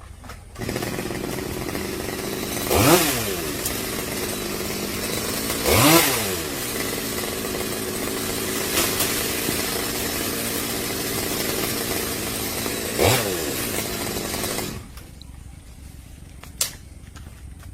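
Two-stroke chainsaw engine idling, blipped to high revs and back three times, then cut off suddenly.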